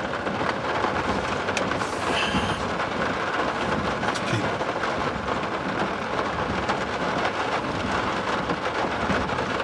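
Steady rain on a truck's roof and windshield, heard from inside the cab, with the truck's running noise underneath.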